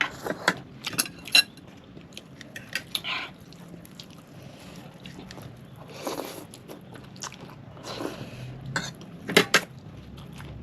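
Close-miked eating sounds: chewing, with scattered sharp clicks of utensils against dishes.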